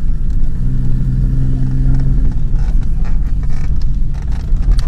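Heard from inside the cabin, a Ford Explorer drives a rough, wet dirt track: a heavy low rumble of engine and tyres throughout, with a steady engine note in the first couple of seconds and short knocks and rattles over bumps in the second half.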